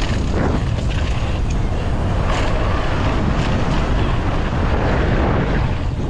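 Steady wind rush buffeting the microphone of a bike-mounted camera as a mountain bike rides fast down a steep dirt slope. Faint crunches from the tyres on loose dirt come through it.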